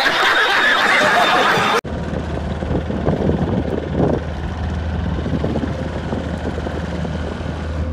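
A brief loud burst of a man shouting amid laughter cuts off suddenly about two seconds in. After it a motorboat's engine runs with a steady low hum, with wind on the microphone and water rushing past the hull.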